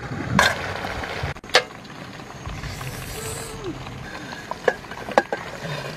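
Steady hiss of a pot of frogs steaming over an open fire, with a few sharp metal clinks of tongs and lid against a steel plate and pot.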